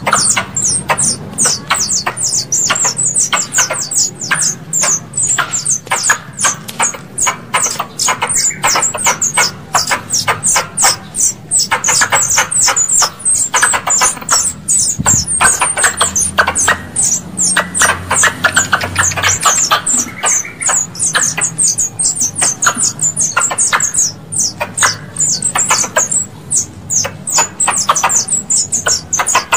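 Squirrel calls played as a lure: a fast, unbroken run of sharp, high chirps, several a second, each dropping in pitch.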